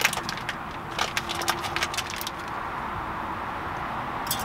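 Light clicks and knocks of kitchen containers and utensils being handled over a cooking pot for about two seconds, then only a steady hiss.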